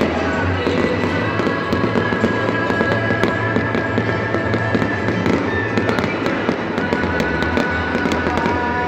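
Fireworks display going off without a break: dense, overlapping bangs and crackles.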